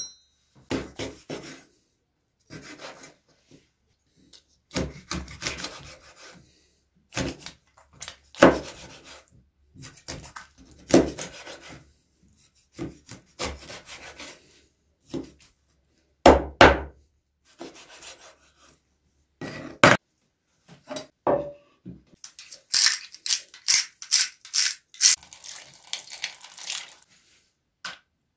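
A knife and cleaver working a whole fish on a wooden cutting board: bursts of scraping strokes and several heavy chops through the fish into the board. Near the end comes a dense run of quick clicks and scrapes.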